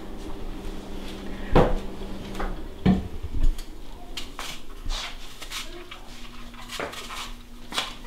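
Vegetable peeler scraping the skin off a green apple, with clinks and a few sharp knocks of utensils and dishes on a kitchen counter, the loudest about a second and a half in and around three seconds in.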